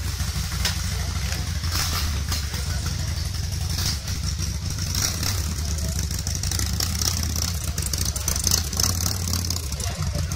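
Harley-Davidson Softail Breakout's V-twin engine idling steadily.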